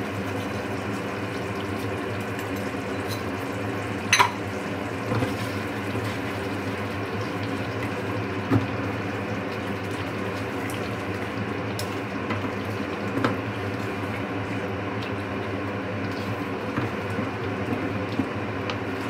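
Paneer curry gravy simmering in a pan on the stove, a steady bubbling, with a few light knocks of a spoon against the pan as sugar is added.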